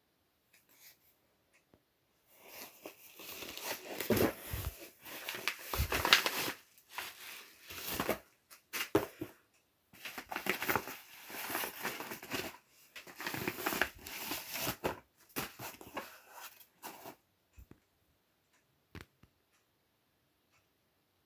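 Paper mailer envelope crinkling and rustling in irregular bursts as it is handled and pulled open by hand, going quiet about three-quarters of the way through, with a single sharp click near the end.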